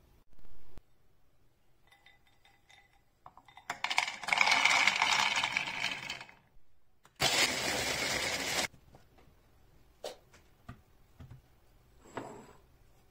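Whole hazelnuts poured into a plastic mini food-chopper bowl, rattling for about three seconds. Then the electric chopper runs for about a second and a half, grinding the nuts to crumbs. A few light knocks follow near the end.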